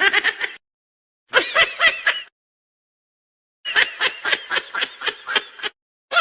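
High-pitched, sped-up cartoon voice laughing in rapid pulses, about seven a second. It comes in three bursts separated by dead silence, with a fourth starting at the very end.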